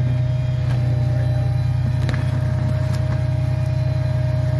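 A truck engine running steadily at a constant speed: an even low drone with a faint steady whine above it.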